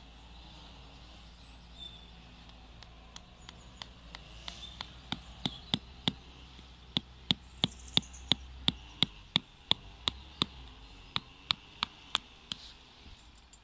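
Rubber mallet hammering a metal tent peg into the ground: a steady run of sharp knocks, about three a second, starting faint a few seconds in and growing louder, with a brief pause shortly before they stop near the end.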